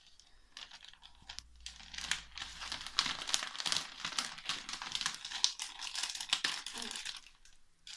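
Crinkling of a foil-lined surprise bag as a hand rummages inside it. The crackling is light at first and becomes busy about two seconds in, dying down near the end.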